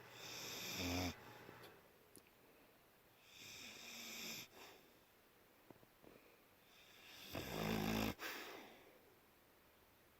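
A sleeping Staffordshire bull terrier snoring: three slow breaths about three and a half seconds apart, each swelling and ending in a low rattling rumble.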